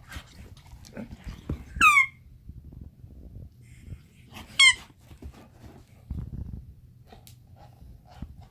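Red rubber toy bone squeaking twice, about 2 s and 4.5 s in, as a pit bull chews and tugs on it while it is held by hand. The first squeak is short and falls in pitch. Low rustling and mouthing noise runs between the squeaks.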